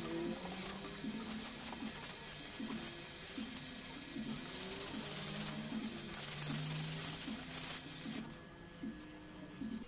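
Tap water running into a sink while a rusty axe head is scrubbed with a steel wool pad, a steady hiss with louder scratchy stretches of scrubbing. The hiss drops away near the end.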